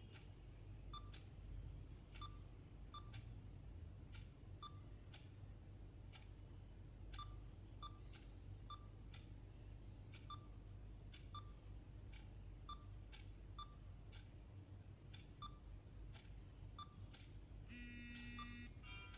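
Near silence, with faint, evenly spaced ticking about one or two times a second and a short electronic chime near the end.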